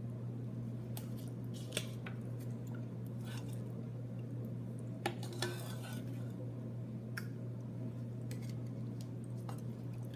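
Light clicks, taps and rustles of a Verbatim CD-R being handled, the sharpest about two and five seconds in, over a steady low hum.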